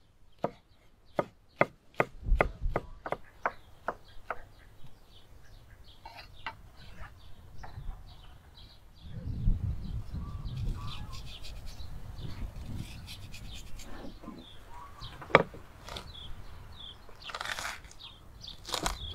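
Knife chopping green chili peppers on a wooden cutting board: a quick run of sharp knocks that thins out into lighter, scattered knocks. Near the end a wooden pestle crushes the chilies with salt in a wooden bowl.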